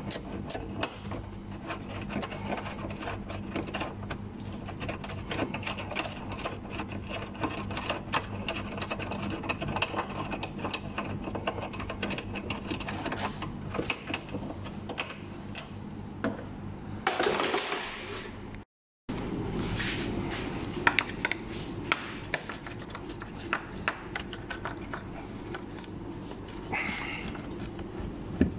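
Ratcheting spanner clicking in quick runs on a nut at the car horn's mounting bracket, over a steady low hum. A louder scrape comes about two-thirds through, followed by a brief dropout and then more small tool clicks and knocks.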